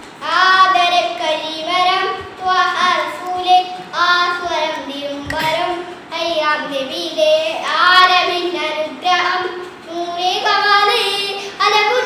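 A young boy singing solo into a handheld microphone, in melodic phrases of about two seconds with short breaths between them.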